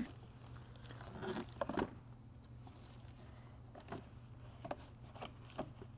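Faint handling noises, a few light taps and rustles, over a steady low hum.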